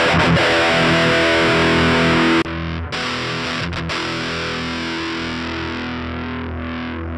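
Distorted electric guitar played through Line 6 GearBox amp and stomp-box modelling via a UX2 audio interface: a chord rings and is cut off about two and a half seconds in, then after a short break another chord is struck and left to ring, now through a fuzz model.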